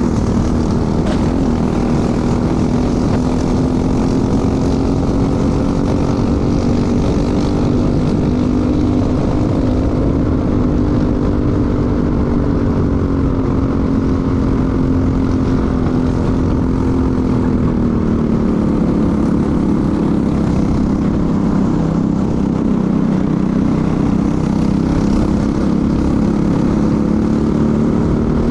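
A racing kart's single-cylinder engine, heard onboard, running hard at steady high revs. It drops in pitch about two-thirds of the way through as the kart slows for a corner, then climbs again near the end as it accelerates.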